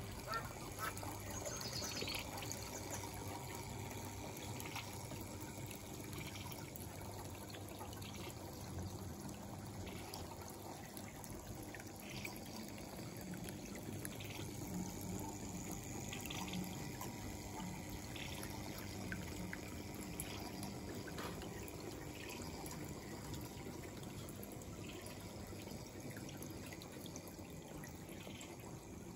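Water trickling steadily, with faint scattered ticks.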